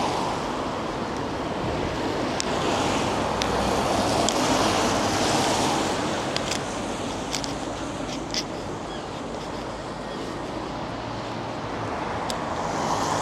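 Wind rushing on the microphone outdoors, swelling and easing, with a few faint sharp clicks.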